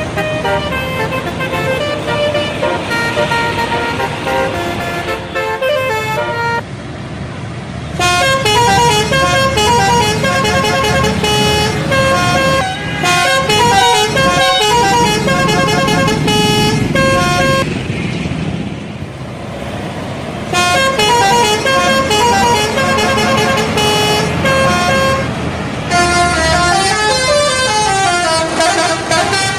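Bus telolet horn, a set of air-horn trumpets sounded in sequence, playing quick melodic runs of notes that step up and down in pitch, in several bursts with short breaks between them. Near the end the tones slide up and down like a siren. A low rumble runs underneath.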